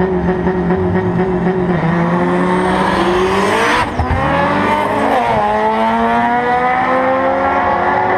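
Drag race cars launching and accelerating at full throttle down the strip. The engine note climbs as they come toward the camera, peaks loudly as one passes close by about four seconds in, drops in pitch as it goes past, then climbs again in steps as it shifts up and pulls away.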